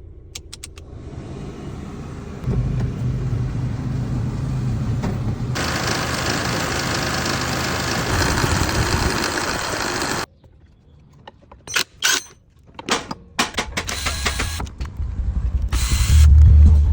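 Car engine running with its electric cooling fan, which makes a noise when the air conditioning is switched on. About five seconds in a louder rushing noise joins and then cuts off suddenly near ten seconds, followed by scattered clicks and knocks and a low rumble near the end.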